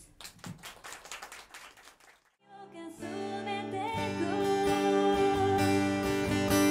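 Audience clapping for about two seconds, then, after a brief pause, a song begins: strummed acoustic guitar with a woman singing.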